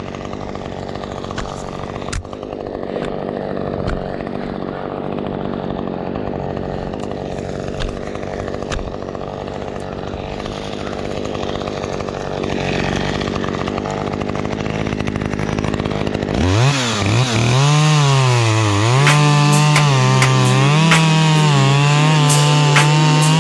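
Husqvarna chainsaw running steadily under load as it bucks a felled spruce trunk into lengths. About two thirds of the way in, electronic music with a loud wobbling bass and a beat takes over.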